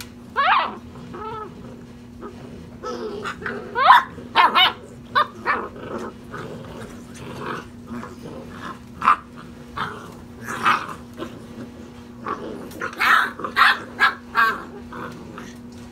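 Basset hound puppies play-fighting, giving many short yips, barks and growls, with two rising whines about half a second and four seconds in. The calls come thickest near the end.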